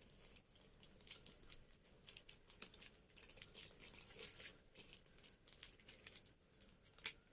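A package being cut open and handled with scissors: quick, irregular crinkles and snips of tape and packaging.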